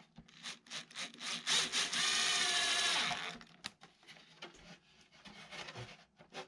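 Cordless driver spinning a drill bit into the wooden side of an old drawer, boring a hole for a reinforcing screw: a steady whining run starting about a second and a half in and stopping about two seconds later. Light knocks and taps of wood being handled before and after.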